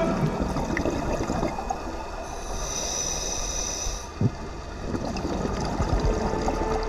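Muffled underwater noise heard through a camera's waterproof housing, with scuba divers' exhaled bubbles gurgling. A single knock about four seconds in, and faint background music coming back in during the last couple of seconds.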